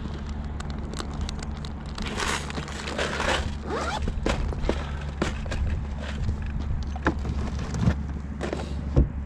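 Tackle being rummaged on a boat deck: plastic bait packs rustling and many small clicks and knocks as a plastic bait box is handled, then two louder thumps near the end as a storage compartment lid is handled. A steady low hum runs underneath.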